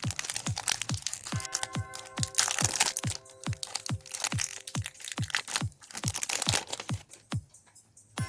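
Electronic background music with a steady kick-drum beat and held chords, over crinkling and crackling of chocolate wrappers being opened.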